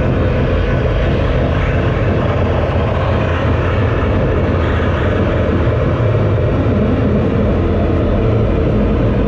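Loud experimental electronic noise music from the Unicoretar, a homemade electronic instrument: a dense, steady drone with a heavy low rumble under a layer of hiss, and no beat.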